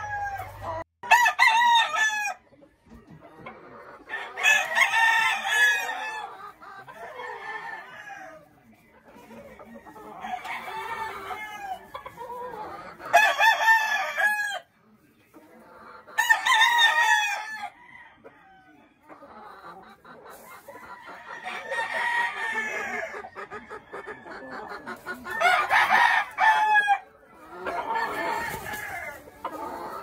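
Gamefowl roosters crowing one after another: several long crows of a second or two each, with quieter clucking between them.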